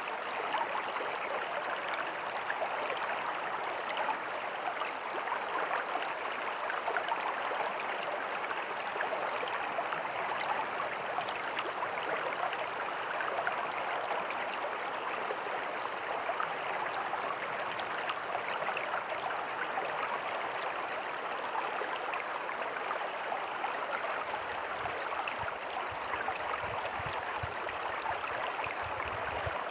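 Small creek running steadily over rocks, with a tiny waterfall splashing: an even, continuous rush of water.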